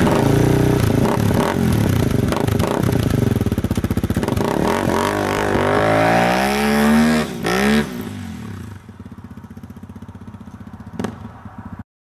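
An engine running and revving: its pitch climbs about five to seven seconds in, then falls away at about eight seconds, leaving a lower, quieter running sound.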